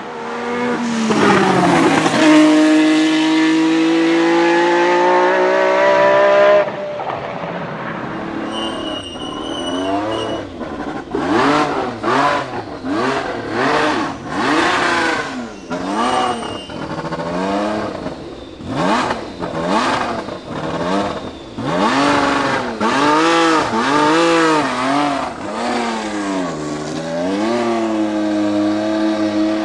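A 1979 Renault RS10 Formula 1 car's 1.5-litre twin-turbo Gordini-Renault V6 is heard first at high revs, its pitch climbing slowly, until it cuts off about six seconds in. After that the engine is blipped over and over, the revs rising and falling about once a second, with a brief high whistle around ten seconds in.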